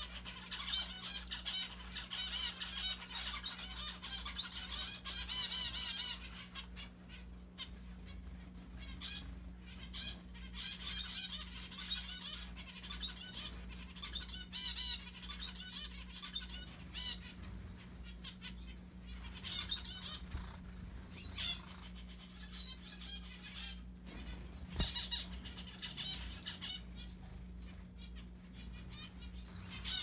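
Zebra finches calling: rapid high chirping in runs of several seconds, with short pauses between.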